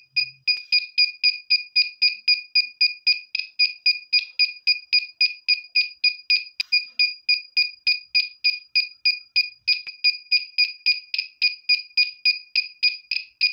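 Small DIY buzzer alarm beeping rapidly and evenly, about four high-pitched beeps a second: the hanging nut has closed the circuit, setting off the earthquake alarm.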